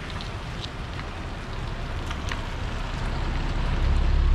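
A car driving past on a rain-wet road, its tyres hissing on the wet asphalt, with a low rumble swelling near the end.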